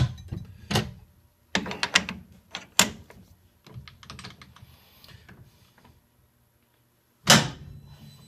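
Sharp metal clicks and knocks from handling the stopped metal lathe's tool post and carriage handles: a few in quick succession, then a louder single knock about seven seconds in.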